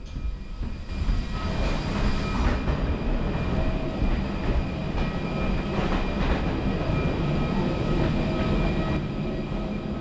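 Steady airport machinery noise, a low rumble and hiss with a faint high whine held throughout, heard from the boarding bridge and aircraft doorway of a parked airliner, with a few faint knocks of footsteps.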